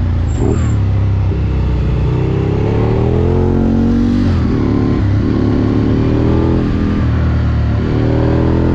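Aprilia Tuono V2's 1077 cc V-twin engine pulling hard on the road, heard from the bike itself. Its pitch climbs and drops back several times as the rider works the throttle and gears through the bends, over a steady rush of wind noise.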